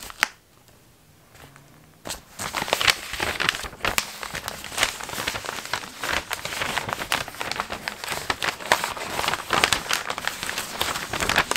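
Paper packing wrap crinkling and rustling as it is unfolded and pulled open by hand. It starts after a brief quiet about two seconds in, then goes on as a dense, irregular run of crackles.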